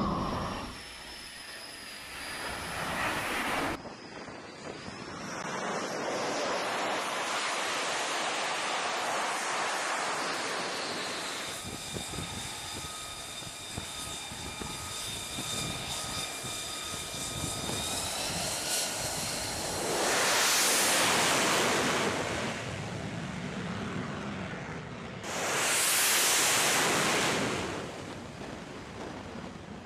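Military jet engines: a steady high turbine whine from a jet running on deck, then two loud rushing swells of jet noise as jets pass.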